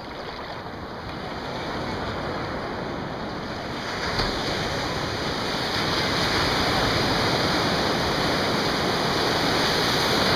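Ocean surf in shallow water: the steady rush and hiss of breaking waves and foaming whitewater. It grows louder about four seconds in as a broken wave rolls in close.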